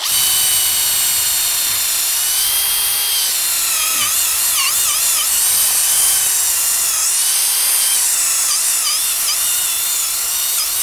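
Cordless drill running continuously as it bores a pilot hole into a tree trunk for a 3/4-inch lag bolt, a steady whine whose pitch dips and recovers a few times.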